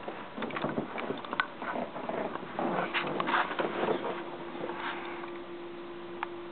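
Scratching, rustling and light knocks of a kitten scrambling over a fabric sofa and a person shifting on the cushions. A steady low hum comes in about two and a half seconds in.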